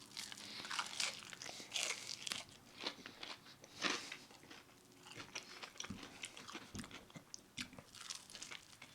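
Someone biting and chewing crispy, breaded fried chicken, with a run of short crackly crunches.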